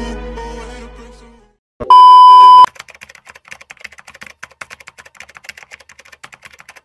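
Intro music fades out, then a loud, steady beep sounds for under a second about two seconds in. It is followed by a fast, even run of typing clicks, a keyboard sound effect.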